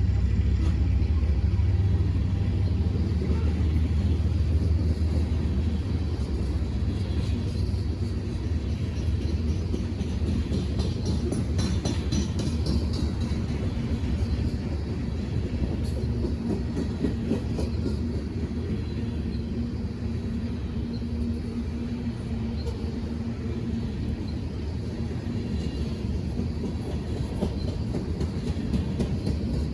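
A train rumbling past, loudest at the start and easing off slightly, with a few faint clicks around the middle.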